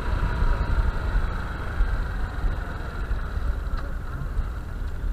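Honda Bros 160 single-cylinder motorcycle running steadily on the road, its engine rumble mixed with wind buffeting the helmet microphone.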